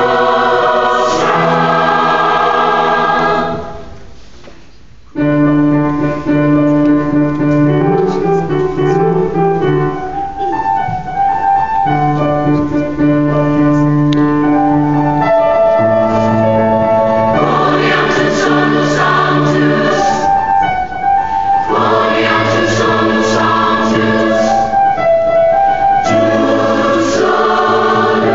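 A youth choir of mixed voices singing in parts, holding long chords. About four seconds in the singing fades to a brief pause, then the whole choir comes back in together.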